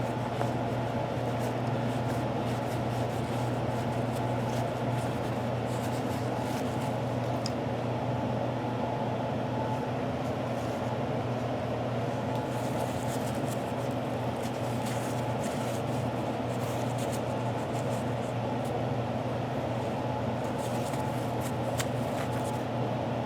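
Steady low electric hum, as from a fan or motor, with faint scattered scratching while a grimy small part is being cleaned, mostly in the second half.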